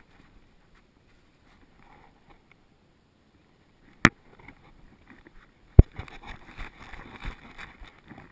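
Two sharp knocks on a dog-worn camera, about two seconds apart, the second louder, followed by soft rustling of fur and movement against the microphone.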